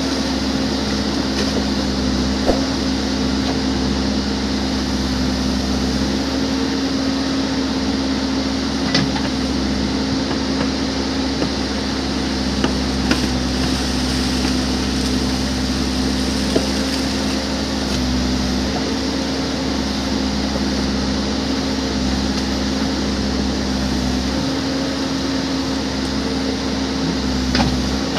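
Case backhoe loader's diesel engine running steadily as it works, with a few short sharp knocks scattered through.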